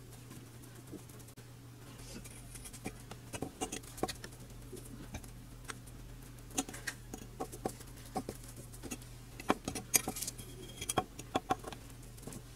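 A sponge on a metal rod scrubbing the peeling paint on the bare metal body of a model ambulance, with irregular small scratches and clicks as the pointed metal tool holding the parts taps and scrapes against the metal; the strokes come thicker in the second half.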